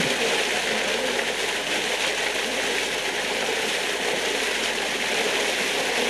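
Rushing water gushing and splashing over rocks, a steady, loud churning noise.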